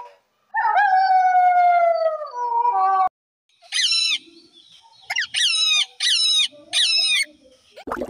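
A grey wolf howls, one long call falling slowly in pitch, cut off after about three seconds. Then a green Amazon parrot gives four loud calls, each sliding down in pitch.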